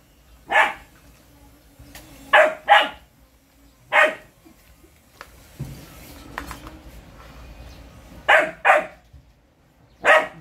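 A dog barking in short single barks and quick pairs, about seven barks in all, with gaps of a second or more between them.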